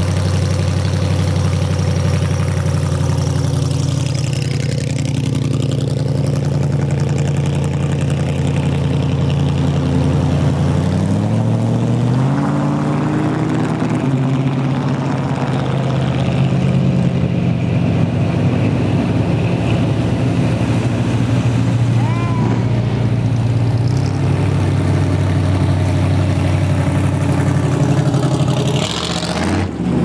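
Hot rod and classic car engines running as the cars roll slowly past, a low steady engine note; about eleven seconds in one engine revs up, rising in pitch for a few seconds before settling back.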